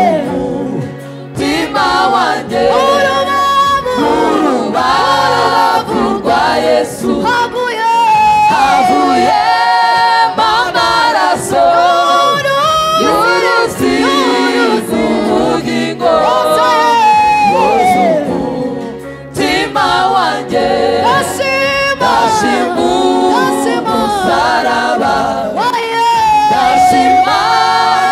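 Choir singing a Rwandan gospel song.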